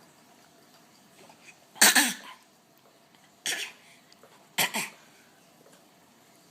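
An 11-month-old baby's fake coughs: three short coughs, the first the loudest and longest.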